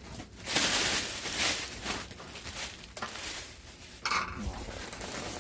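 Rustling and clattering of plastic packaging and takeout containers being handled and unpacked, with a sharp knock about four seconds in.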